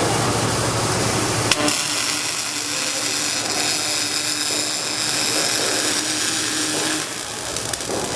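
Robotic arc welding on stainless steel: a steady hissing crackle from the welding arc, with a click about a second and a half in.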